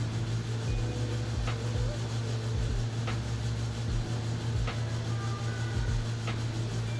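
Steady low electrical hum from a TIG welder being used to tack a steel bracket, with a soft tick about every second and a half.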